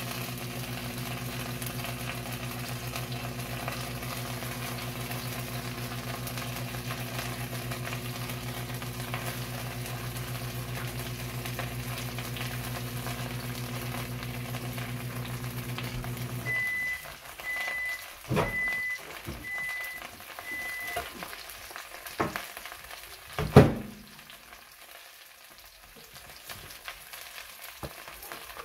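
Battered broccoli and cauliflower fritters sizzling as they fry in oil in a pan. Under them a steady electrical hum, like a microwave oven running, cuts off a little past halfway and is followed by five short, evenly spaced beeps. After that come a few sharp knocks of kitchenware against the pan, the loudest a few seconds after the beeps.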